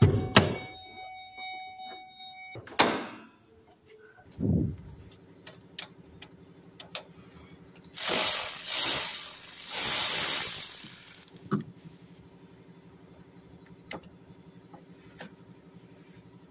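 Hood release lever pulled with two sharp clicks and a dull thump as the hood pops, then a power ratchet runs in a loud whirring burst of about three seconds, loosening the bolt on the negative battery cable terminal. Light clicks follow as the cable clamp is handled.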